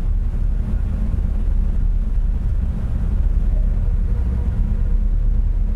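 Ferry's diesel engines running with a steady low rumble as the ship pulls away from its berth, propellers churning the water.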